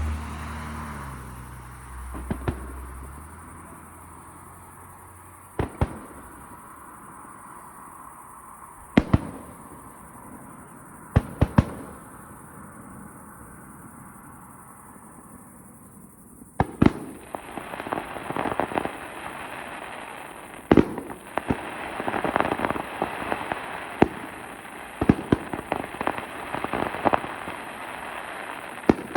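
Aerial display fireworks: single shell bursts go off a few seconds apart, then about two-thirds of the way in the display turns into dense crackling with frequent bangs. A low drone fades out in the first few seconds.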